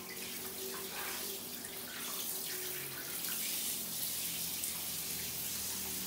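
Water running steadily into a bathtub from the tap as the bath is filled, a constant rushing hiss.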